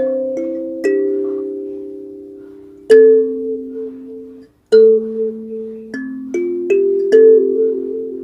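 21-key XINQIDIAN hollow koa-wood kalimba being played: thumb-plucked tines ring out in a slow tune, often two or three notes together, each note fading slowly. About halfway through the sound cuts out for a moment before the playing goes on.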